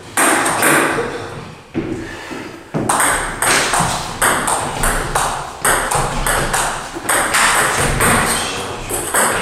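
Table tennis ball clicking off bats and a table in a rally, about three hits a second from about three seconds in, each click trailing off briefly in the hall.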